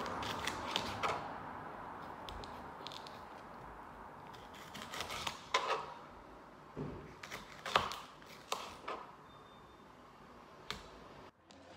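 Kitchen knife slicing red bell pepper on a cutting board: irregular sharp taps of the blade striking the board, a few at a time with pauses between.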